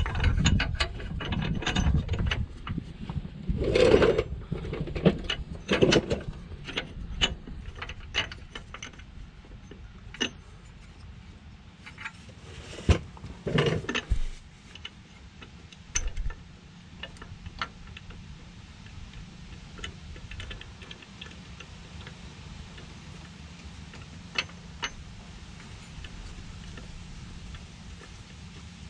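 Metal clicks, clinks and knocks of hand tools and hardware being worked at an air-spring mount under a pickup truck. The clicks come thick and irregular in the first half, then thin out to only an occasional click.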